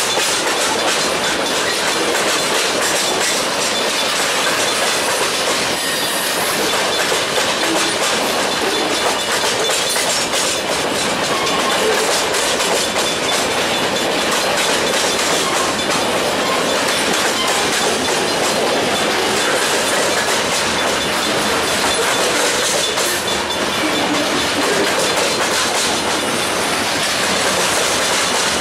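Freight train of covered hopper cars rolling past close by: a steady rumble of steel wheels on rail, with a constant clickety-clack of wheels over the rail joints.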